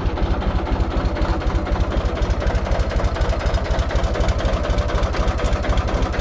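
Farm tractor's diesel engine running with an even low throb while its hydraulics slowly lift a chained load.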